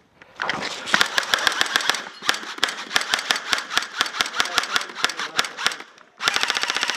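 Airsoft guns firing rapid strings of shots, then one fast, evenly spaced full-auto burst near the end.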